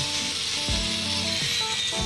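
Background music with held melody notes and a low thumping beat, over a steady high hiss.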